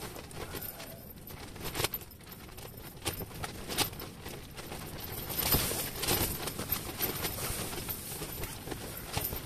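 Ice-fishing tent fabric rustling and flapping in a strong wind, with irregular light clicks and knocks. It grows louder about halfway through.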